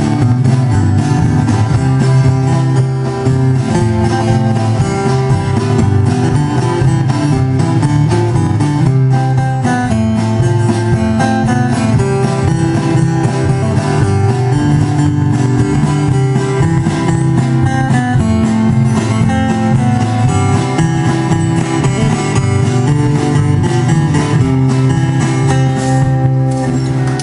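Live country band playing: acoustic guitars strummed and picked over upright bass and drums.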